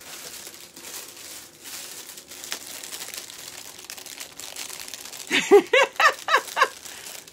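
Crinkling and rustling of a small clear plastic bag and jewelry being handled, with small clicks. About five seconds in a woman laughs briefly.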